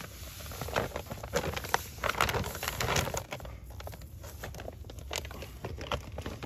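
Polymeric jointing sand pouring out of a sack onto concrete pavers: a gritty patter and hiss with crinkling of the sack, busiest in the first half and thinning out about halfway through.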